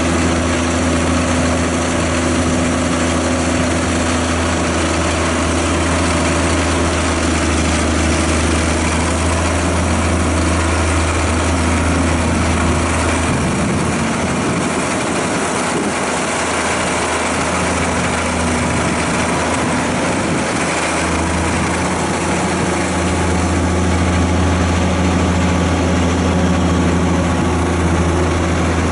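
Caterpillar E motor grader's diesel engine running steadily. Its deep low hum drops away for several seconds around the middle, then comes back.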